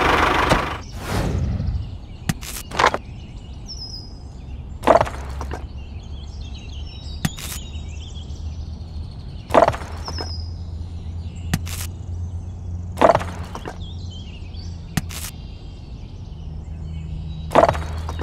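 Stones clacking down one at a time into a small toy tractor trailer as they are loaded by hand, a sharp knock about every two seconds. A small motor's noise dies away in the first second, and faint bird chirps sound in the background.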